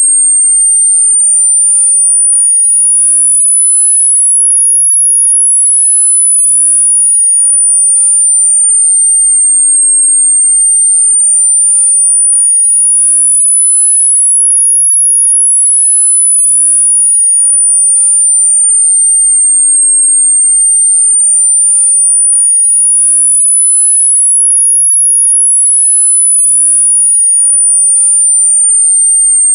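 Electronically generated tinnitus-masking sine tone, a single high-pitched pure tone sweeping slowly up and down between about 8.5 and 10 kHz, one full rise and fall roughly every ten seconds, about three cycles here.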